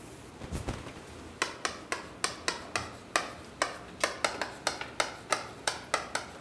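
A stick of chalk tapping and scratching on a chalkboard as characters are written: a quick, irregular run of sharp clicks, about four or five a second, starting about a second and a half in.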